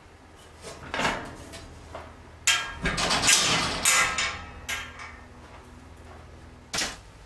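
Galvanised steel clanking and rattling as a spring-loaded gate latch on a livestock trailer's folding deck is worked by hand. A sharp metal knock comes about two and a half seconds in and runs into a longer clatter until about four seconds, and there is another sharp knock near the end.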